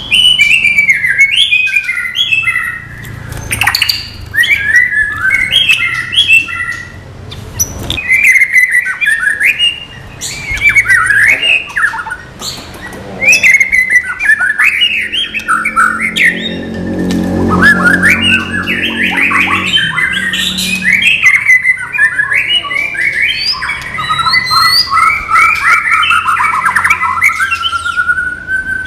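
White-rumped shama singing a long, varied song of quick whistled and chattering phrases that slide up and down in pitch, with short pauses between bursts. A lower, rougher sound runs under the song around the middle.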